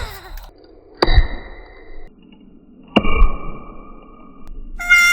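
Two sharp hits about two seconds apart, each followed by a held ringing ping that cuts off abruptly, like edited intro sound effects; a melody on a reedy, harmonica-like instrument starts near the end.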